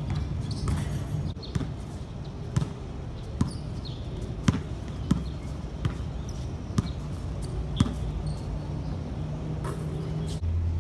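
A basketball bouncing on a hard outdoor court during one-on-one play: about eight sharp, unevenly spaced bounces, over a steady low hum.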